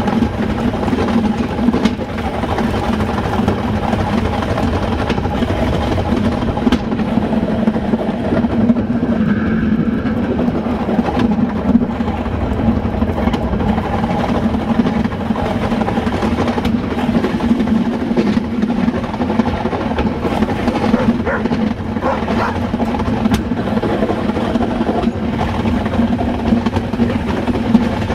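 Metre-gauge train running along the track, heard from inside the rear cab: a steady low rumble and hum of the wheels and running gear, with a few sharp clicks along the way.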